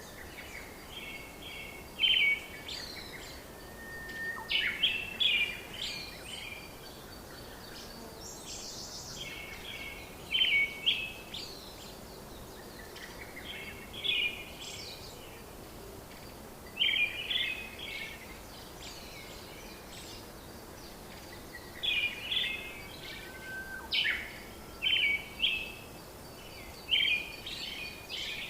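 Birds chirping in short bursts of quick high notes every few seconds, over a steady low hiss.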